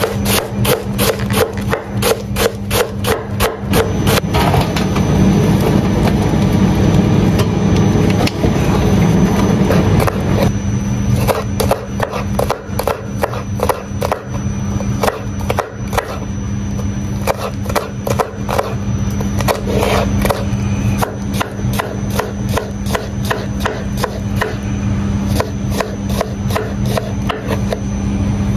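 A knife chopping quickly on a wooden cutting board, a long run of regular knocks about three a second, over a steady low hum.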